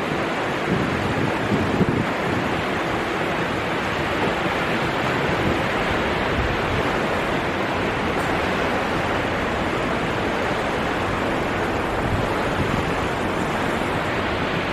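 The River Enz in spate, its fast white water rushing by in a steady, even noise. It carries a lot of water, which he thinks is from recent rain and perhaps snowmelt.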